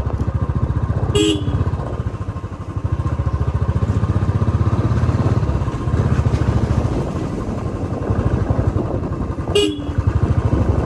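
Royal Enfield Classic 350 BS4's single-cylinder engine thumping steadily under way through its stock silencer. Two short horn honks come about a second in and near the end.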